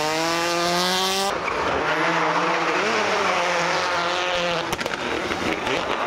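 A Ford Escort Mk2 rally car's engine revving up steeply, then after an abrupt cut about a second in, a second rally car's engine running at high revs, the revs wavering, with tyres squealing and skidding as it slides and spins on tarmac.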